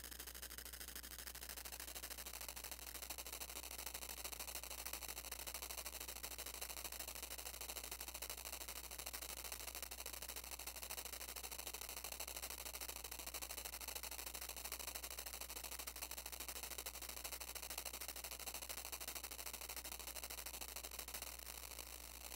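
Modular synthesizer putting out a steady, crackling, static-like noise texture over a constant low hum.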